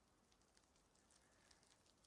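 Near silence, with faint scattered high ticks.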